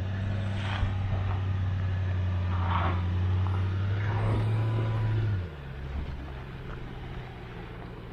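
Volkswagen Touareg's engine pulling steadily at low speed while crawling over the trail, a low drone with a few knocks scattered through it. About five seconds in, the engine note drops suddenly to a quieter level as the load comes off.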